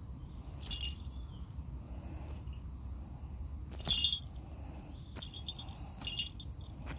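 Small falconry bells on a Harris hawk jingling in short bursts, about six times, loudest about four seconds in, as the hawk shifts and plucks on its prey.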